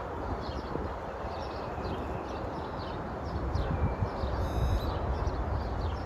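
Small birds chirping, several short chirps a second, over a steady rushing background with wind rumble on the microphone. About four and a half seconds in, one brief, clearer call stands out.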